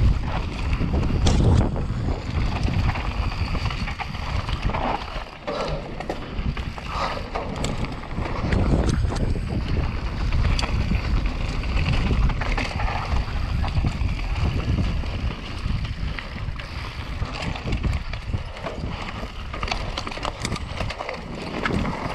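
Mountain bike descending a dusty dirt trail at speed: wind buffeting the microphone and tyres rumbling over dirt and stones, with frequent clicks and rattles from the bike.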